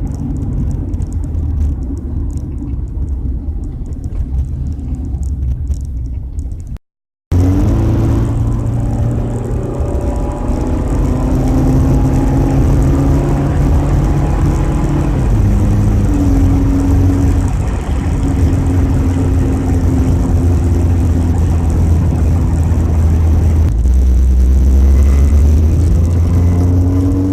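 Car engine and leaking exhaust droning loudly while driving, the note holding steady and stepping down in pitch twice. The exhaust leak, somewhere behind the wheels, was caused by running over a block of wood on the highway. The sound cuts out briefly about seven seconds in.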